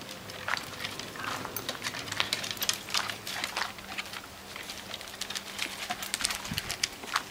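Dogs' claws clicking and tapping irregularly on wooden deck boards as several dogs move about, over a faint steady hum.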